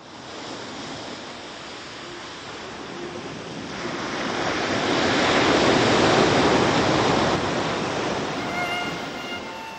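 Sea surf washing against a rocky shore, a steady rush that swells to its loudest around the middle and then eases off. A violin begins faintly near the end.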